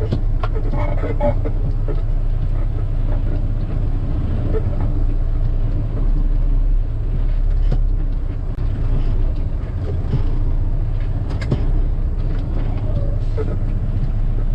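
Log truck's diesel engine rumbling steadily, heard from inside the cab as it crawls over a rough, rutted woods road, with scattered knocks and rattles as the cab jolts.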